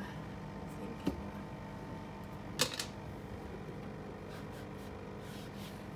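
Light clicks and knocks from handling and wiping fridge parts during cleaning, the loudest a sharp click a little before the middle, with brief faint rubbing later, over a steady low hum.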